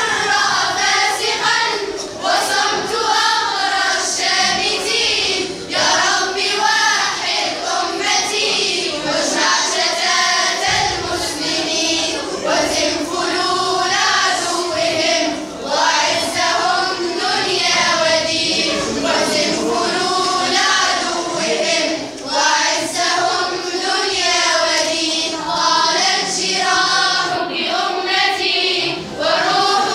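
A group of girls singing a nasheed together, line after line, with short breaks between phrases.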